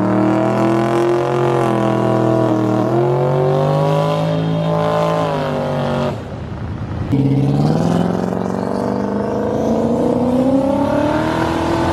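Turbocharged car engine accelerating hard under load. Its pitch climbs, drops briefly about six seconds in as if for a gear change, then climbs steadily again.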